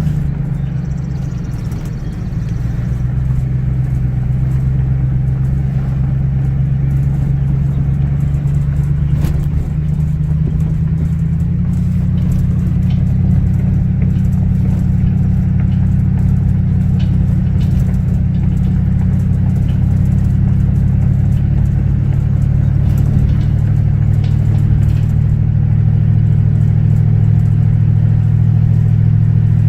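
A car driving steadily: a low engine and road hum that dips slightly about two seconds in, then shifts up in pitch about twelve seconds in and holds steady.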